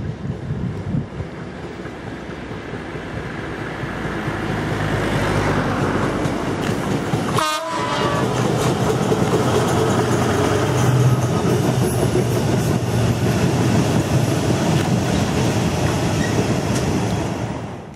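A 1600-class metre-gauge diesel locomotive approaching and passing close by, its engine growing louder, followed by a long string of loaded flat wagons clattering over the rail joints.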